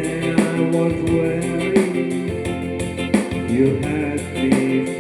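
Slow gospel-style song: a voice singing held, wavering notes over guitar accompaniment with a steady beat.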